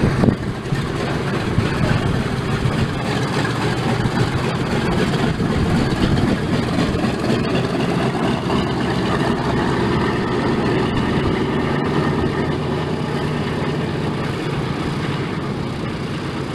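Boeing B-17G Flying Fortress's four Wright R-1820 Cyclone radial engines running steadily at taxi power as the bomber taxis, a deep continuous drone that eases slightly near the end as it moves away.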